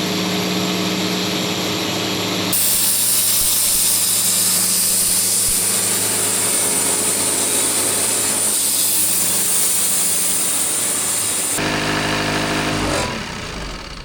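Wood-Mizer portable band sawmill at work. The engine runs steadily, and about two and a half seconds in a loud hiss joins it as the band blade cuts through the log. The hiss stops about twelve seconds in, and the machine's sound changes and fades near the end.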